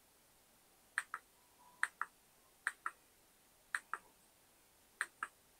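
Five double clicks about a second apart, each a press and release of a small plastic button on the iJoy Logo wireless headset as the EQ presets are stepped through.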